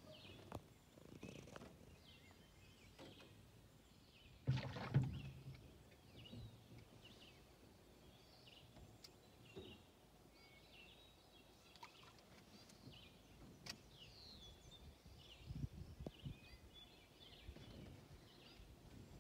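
Faint chirps of distant small songbirds, scattered through a quiet lakeside background, with a low thump about four to five seconds in.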